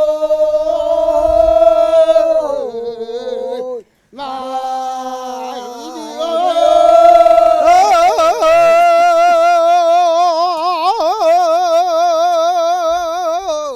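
One unaccompanied voice singing a slow Korean folk song, drawing out long held notes. After a short breath break it holds the notes again with a wide, shaking vibrato from about halfway through.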